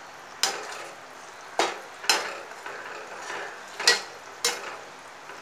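Slotted steel spatula stirring okra into simmering tamarind gravy in a steel pot, knocking sharply against the pot five times, with a faint steady hiss of the simmering gravy in between.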